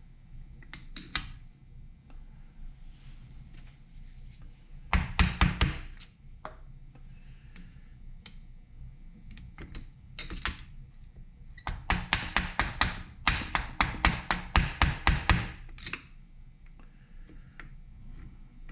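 Hand tools tapping and clicking on small metal engine parts, with a short run of quick strikes about five seconds in and a longer run of quick strikes, about five a second, later on: working the piston off a chainsaw's connecting rod.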